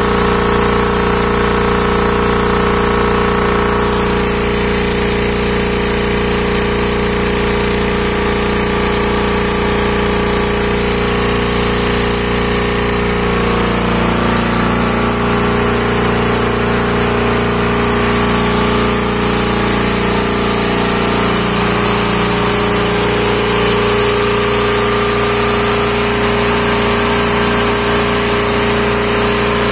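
Hatlapa W 220 compressor, driven by an electric motor, running steadily on test with a continuous loud mechanical clatter.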